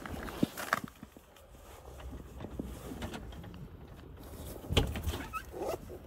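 An aluminium storm door being handled and opened, with faint footsteps and a sharp clunk about five seconds in.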